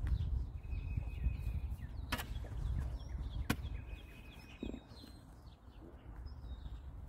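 Spade blade striking and chopping into the soil of a trench, two sharp strikes a little over a second apart, over a low rumble, with small birds chirping faintly.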